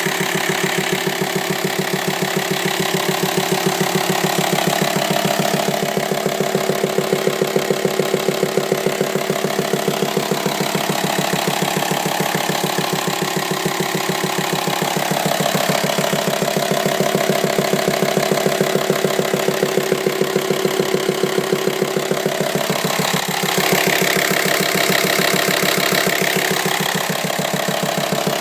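Volkswagen Multivan T5 engine idling steadily with a fast, even knocking beat: an extraneous knock from the engine that the owner is trying to trace.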